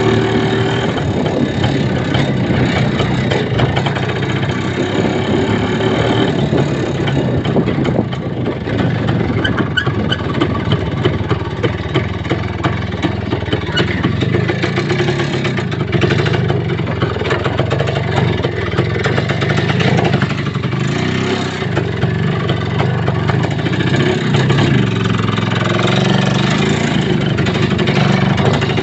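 Vehicle engine running under way, its pitch rising and falling with the throttle, over a constant rough rattle and road noise.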